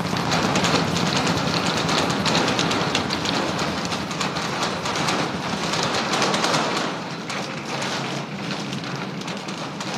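Rocket engine noise from the Super Heavy booster's 33 Raptor engines firing at full thrust during ascent: a loud, dense crackling rumble that eases slightly about two-thirds of the way through.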